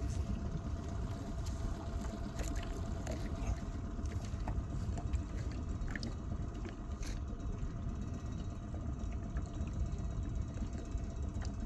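Low rumbling wind noise on the microphone over open water, with a faint steady motor hum underneath and a few light knocks.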